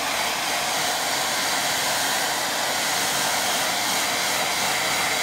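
Handheld hair dryer running steadily, blowing air onto a watercolour painting to dry the wash.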